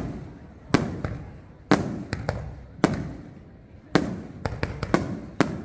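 Aerial fireworks bursting: a sharp bang about once a second, each followed by a rumbling echo that dies away, then a quick run of smaller cracks near the end.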